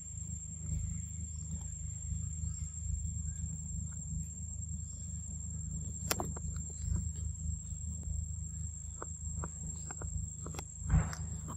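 A young macaque biting and chewing corn on the cob: crisp crunching clicks, most of them from about halfway through, with a louder crunch near the end. Underneath runs a steady low rumble and a steady high-pitched whine.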